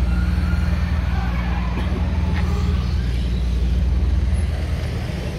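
Refrigerated lorry running steadily at idle: a loud, even, low engine hum.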